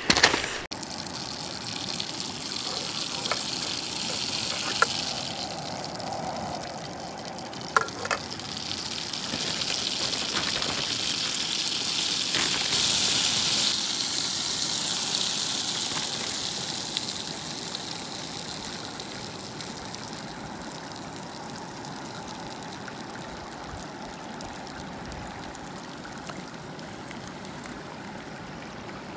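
Stream water rushing, louder for a while in the middle and then steadier and softer, with two sharp knocks in the first eight seconds.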